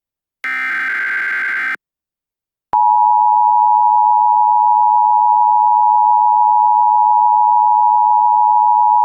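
Emergency Alert System broadcast alert: the last burst of the SAME digital header, a harsh electronic warble a little over a second long, then a second of silence, then the steady two-tone EAS attention signal, which starts about three seconds in and holds.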